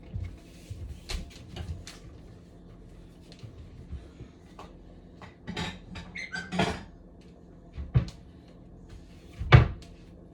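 Kitchen handling sounds as a bowl of macaroni and cheese is served: scattered clicks, knocks and short scrapes of dishes and cupboard, the loudest knock about nine and a half seconds in.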